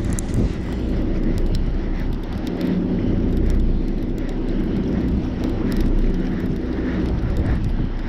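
Steady low rumble of wind buffeting the microphone on a boat at sea, with a few faint light ticks while a conventional fishing reel is cranked.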